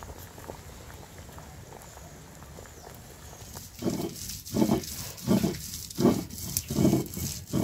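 An animal giving a run of six short, loud calls, about one every 0.7 seconds, starting about halfway through.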